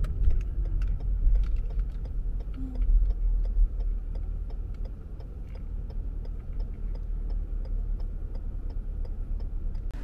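A car's turn-signal indicator ticking steadily, about three ticks a second, over the low rumble of the car rolling slowly, heard inside the cabin.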